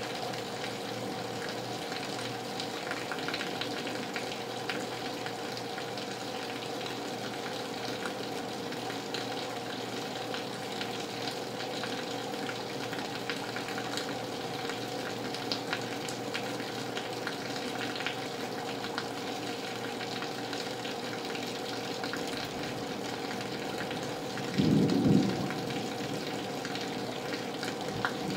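Rain falling on glass: a steady hiss with fine droplet ticks, over a faint steady hum. Near the end comes one brief, louder low rumble.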